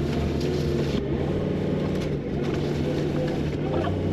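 Engine of a farm machine running steadily at an even speed, with a constant low hum.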